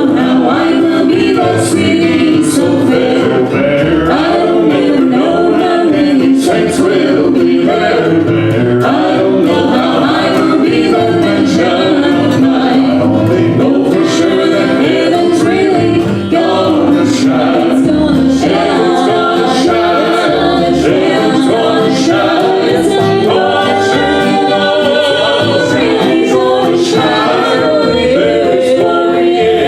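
Southern gospel vocal group singing in harmony with instrumental accompaniment, a steady beat running under the voices.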